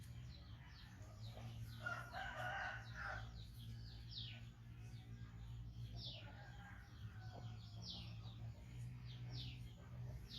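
A rooster crowing about two seconds in, with short, high chirps that fall in pitch repeating throughout, over a steady low hum.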